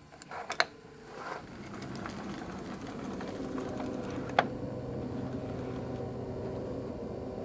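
A door latch clicking as a door is unlatched and pulled open, with the sharpest click just under a second in. A steady mechanical hum then comes up and holds, with one more sharp click about four seconds in.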